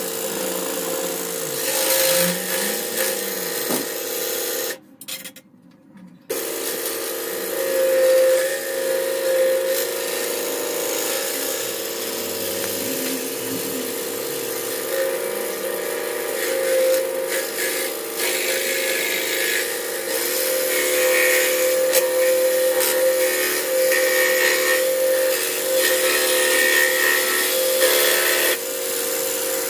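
Electric scroll saw running, its reciprocating blade cutting through a wooden board with a steady hum and rasp. The sound cuts out for about a second and a half about five seconds in, then resumes.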